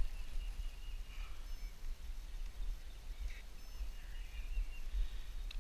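Wind buffeting the microphone in an uneven low rumble, with a few birds chirping faintly in the background.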